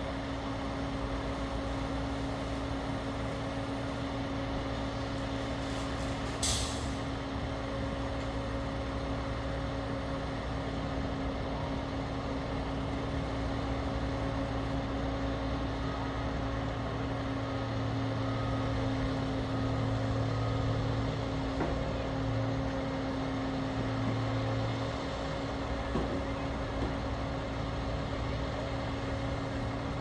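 Diesel heavy trucks running at low speed, a steady engine hum and rumble that swells for several seconds past the middle as the semi-truck pulls away. About six seconds in, a short hiss of an air brake.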